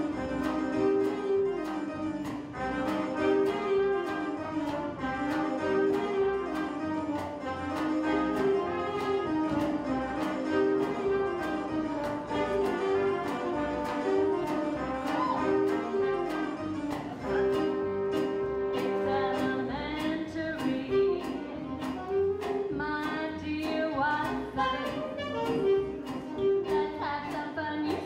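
Live pit orchestra playing an instrumental dance number with a steady beat, bowed strings carrying the melody over upright bass.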